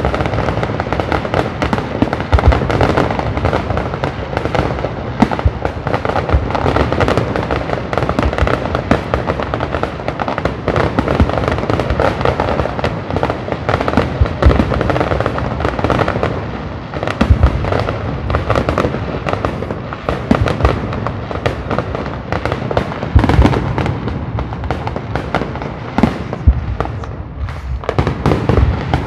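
Professional fireworks display: a dense, continuous barrage of aerial shells and mines bursting, bangs and crackle packed close together, with loud sharp reports scattered throughout and a brief lull near the end.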